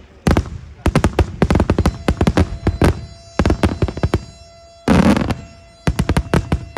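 Daytime fireworks going off in rapid volleys of sharp bangs, packed close like strings of firecracker reports, with a denser crackling burst about five seconds in. A steady pitched tone sounds under the bangs from about halfway through.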